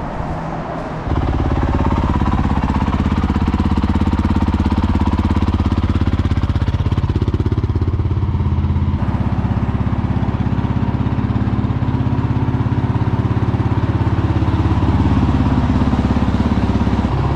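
Honda CRF450L's single-cylinder engine idling steadily, being warmed up before an oil change.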